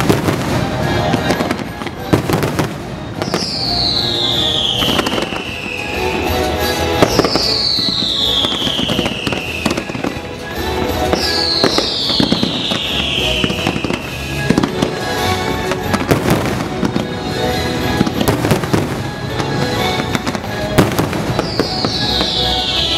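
Fireworks display: continual shell bursts and crackling, over the show's music soundtrack. A long falling whistle sounds four times.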